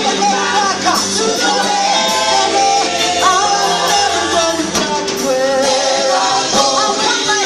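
Live gospel choir singing with a full band of guitar and drums, holding and bending sung notes between lines of the song.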